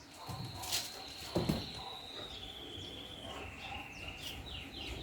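A dog whining: one long high-pitched whine that slowly sinks in pitch, breaking near the end into short falling whimpers, about four a second. A thump about a second and a half in.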